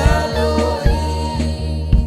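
Live gospel worship band music: sustained keyboard chords over a steady bass, with drum hits about every half second.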